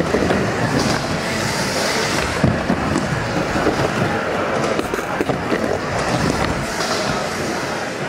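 Skateboard wheels rolling on a vert ramp as the rider carves from wall to wall. The rolling noise is steady and gets louder twice.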